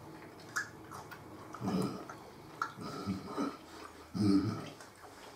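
A man chewing a mouthful of salame, with soft mouth noises, a few small clicks and several short low murmurs.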